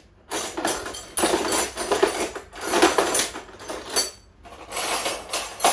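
Steel wrenches clinking and clattering against each other as they are handled, in several short bouts of a second or less.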